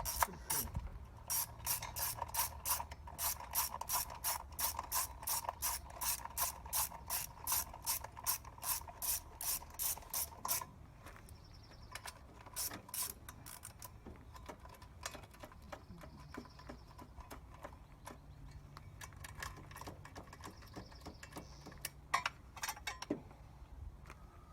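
Hand ratchet wrench clicking steadily, about three to four clicks a second, for about ten seconds, then stopping. A few scattered clicks follow later.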